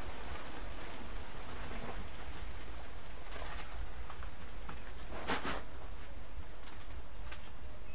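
A plastic shopping bag rustling in a couple of short bursts, the strongest about five seconds in, over a steady low rumble, with a bird calling in the background.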